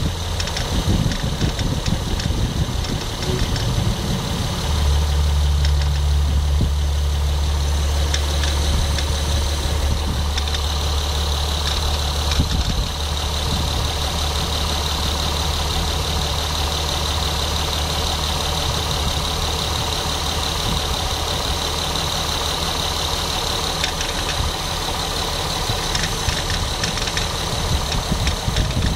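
Acura MDX V6 engine idling with a repeated knock, which the owner suspects is the timing belt tensioner. A low hum comes in about five seconds in.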